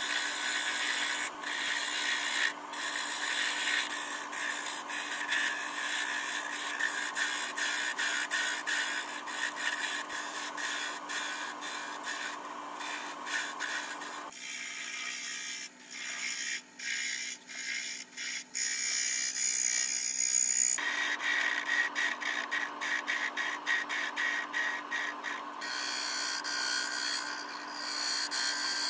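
Wood lathe running with a steady motor hum while a skew chisel cuts a spinning spindle of pale wood: a hissing, scraping cut with many quick ticks, easing off for a few seconds midway.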